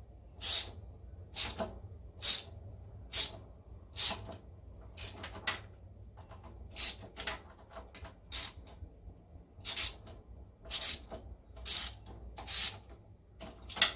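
A hand tool turning a tight-threaded nut or bolt on the connecting-rod big-end bearing inside the crankcase of an International Harvester Type M 3 hp engine. It makes a short metallic rasp with each stroke, about one a second, and a sharp clink just before the end.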